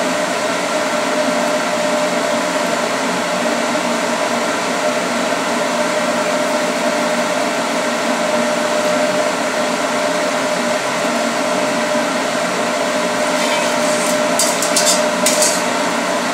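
Steady mechanical whir with a constant hum, like a kitchen fan running. Near the end, a few sharp clicks of a wire whisk knocking against the pan.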